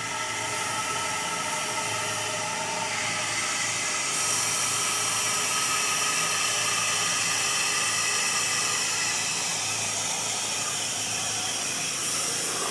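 Water from a garden hose running steadily into a Ford Model A radiator through its top neck, a continuous rushing hiss as the radiator fills for a drain-flow test.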